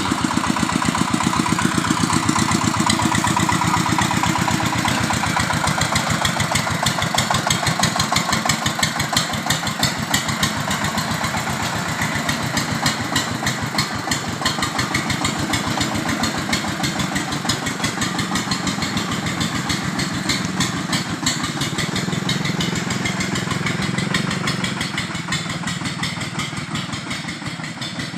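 Engine of an amphibious vehicle running steadily, its rapid firing pulses even throughout, fading slightly near the end.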